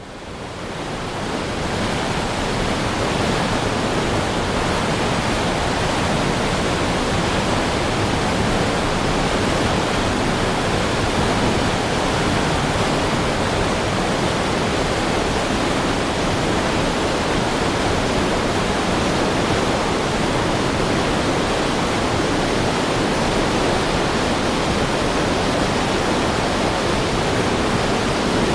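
Heavy river stream rushing, a dense steady roar of flowing water that fades in over the first couple of seconds.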